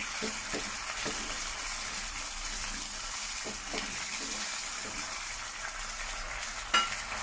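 Chilli sauce with fried garlic and green chillies sizzling and bubbling in a pan as it boils, with one sharp tap near the end.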